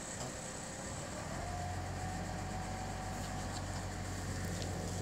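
Steady hum of an idling engine. A low drone and a faint steady whine set in about a second in and hold level.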